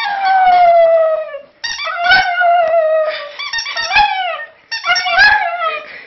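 Border terrier howling: three long, wavering howls with short breaks between them, the first sliding steadily down in pitch.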